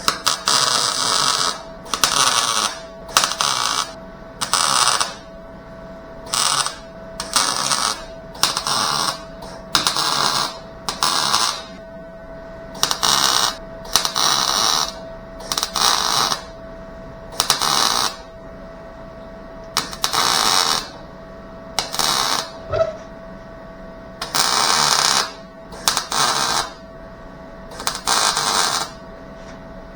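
A welding arc laying tack welds on a car's sheet-metal taillight panel: about twenty short crackling bursts, each under a second, coming a second or so apart, with a steady hum underneath.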